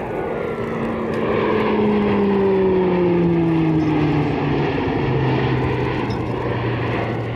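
E-2C Hawkeye's twin Allison T56 turboprops passing by: a loud propeller drone that swells and then drops in pitch as the aircraft goes past.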